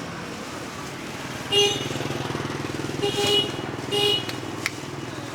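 Motorbike engine running close by, its horn beeping three short times.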